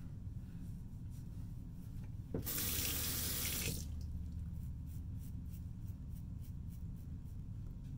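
A sink tap opened with a click runs for about a second and a half, then shuts off. After it come faint, short scratching strokes of a Gillette Fatboy safety razor on lathered stubble.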